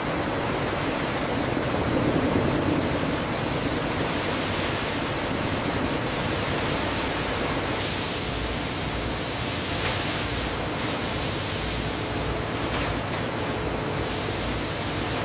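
Steady rushing noise of processing-plant machinery, with a brighter hiss that comes in for a few seconds about halfway through and again near the end.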